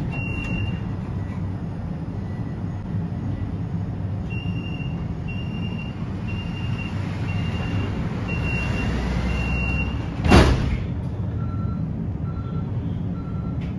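Inside a tram over a steady low running rumble, a series of short high electronic beeps sounds at about two a second, stopping briefly and then resuming. A short loud burst comes about ten seconds in, followed by three slower, lower beeps.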